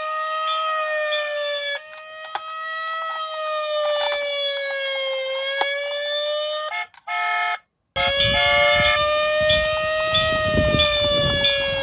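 Toy emergency vehicle's electronic siren wailing, a tone that slowly rises and falls every few seconds. About seven seconds in it breaks into a short different tone and cuts out for a moment, then the wail resumes with a low rumble underneath.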